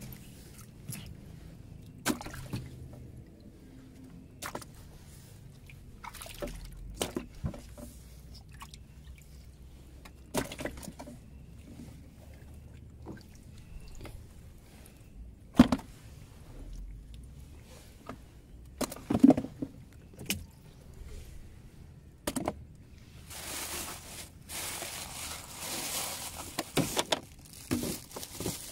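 Knocks and bumps of fish and gear being handled in a small boat, with water dripping and sloshing. Two sharper knocks stand out in the middle, and near the end a few seconds of hissing water, like pouring or splashing.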